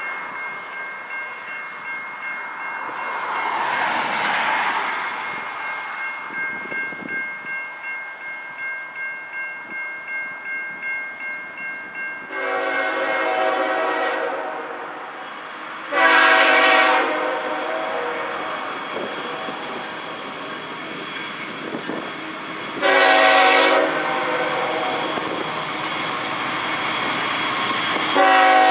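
Air horn of Norfolk Southern 8104, the Lehigh Valley heritage locomotive, sounding as the train approaches: two long blasts, a short one, then a long one starting near the end, the long-long-short-long grade-crossing signal. Before the horn, a car passes on the highway about four seconds in, a rush that rises and fades.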